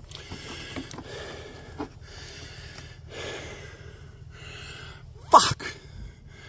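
A man sneezes once, sharply, about five seconds in, over faint rustling and background hiss.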